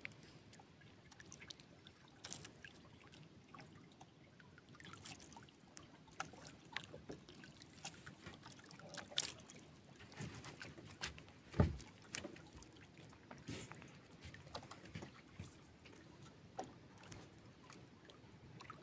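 Faint water lapping and trickling against a small wooden outrigger canoe's hull on calm sea, with scattered small clicks and knocks and one louder knock about halfway through.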